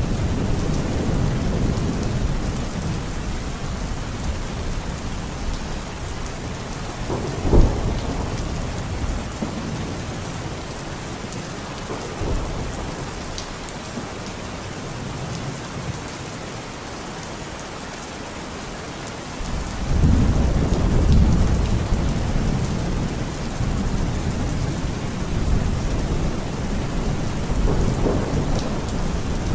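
Heavy rain pouring steadily, with thunder: low rumbling at first, a sharp clap about a quarter of the way in, and a long low rumble from about two-thirds of the way in.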